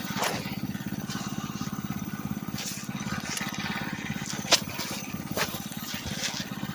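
A small minibike engine running steadily with an even, fast firing pulse, and a sharp click about four and a half seconds in.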